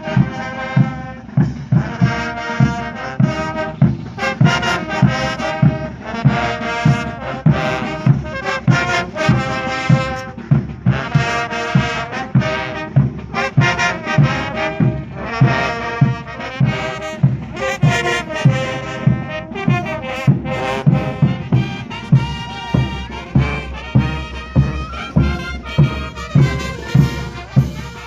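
Brass band music, trumpets and trombones playing over a steady drum beat of about two beats a second.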